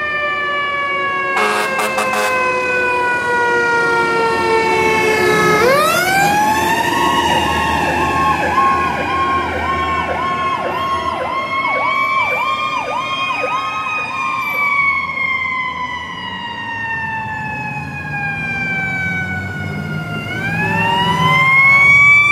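Sirens of fire engines and an ambulance responding. A wail falls slowly for several seconds and then sweeps quickly back up, twice, and a faster yelping siren overlaps it for a few seconds in the middle.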